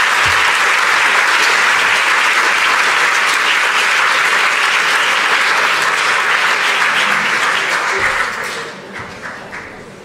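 Audience applauding, a dense steady clapping that dies away after about eight seconds into a few scattered claps.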